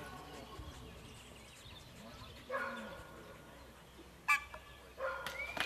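Two short, sharp calls on an open field, about halfway and about three-quarters through, then a high, steady whistle tone starting just before the end.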